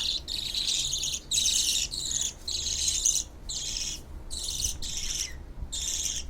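Baby birds begging as their mother feeds them: a run of hissy, rasping calls, about eight in a row, each roughly half a second long with short breaks between them.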